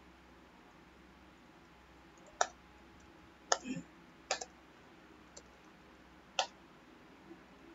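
Computer mouse and keyboard clicks while drafting in AutoCAD: about half a dozen short, sharp clicks at irregular intervals, over a faint steady hum.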